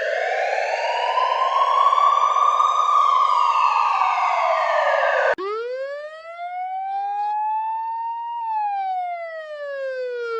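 Two edited siren sound-effect variations back to back. First a buzzy, noisy wail rises and falls and cuts off abruptly about halfway through. Then a clean-toned siren rises slowly for about three seconds and falls again.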